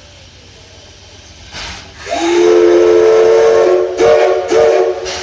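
Steam whistle of the JNR Class C11 tank locomotive No. 325 blowing: a hiss of steam about a second and a half in, then one long loud blast of several tones together, followed by two short toots near the end with steam hissing between them.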